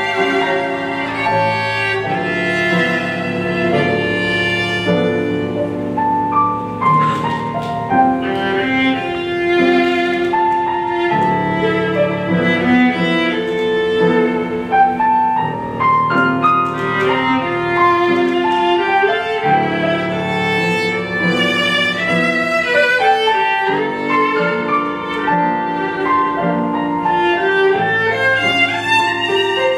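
Viola and piano playing together: the viola bows a melody of long held notes over piano accompaniment.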